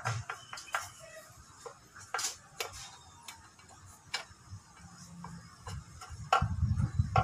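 Scattered small clicks and taps of metal parts handled by hand: the screws, wire eye terminal and mounting plate of a Kawasaki Fury's fuel gauge sender being worked into place. About six seconds in, a louder low rumble comes in.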